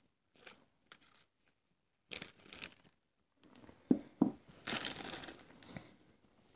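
Small clear plastic parts bag from a carburetor rebuild kit rustling and crinkling in short bursts as parts are picked out of it, with two sharp knocks about four seconds in.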